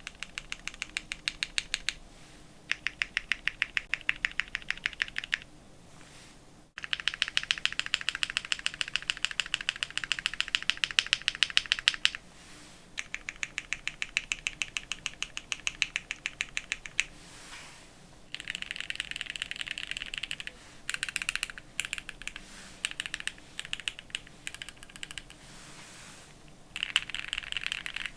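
Fast typing on a gasket-mounted custom 65% mechanical keyboard with lubed Gateron Pro Yellow linear switches, a polycarbonate plate and PBT keycaps: rapid key clacks in runs of several seconds, broken by short pauses.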